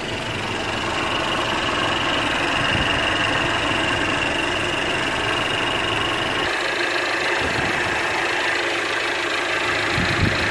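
Mercedes-Benz E300's 2.0-litre turbocharged four-cylinder engine idling steadily, with engine flush newly added to its oil. A faint high whine runs along with the idle and drops away about six seconds in.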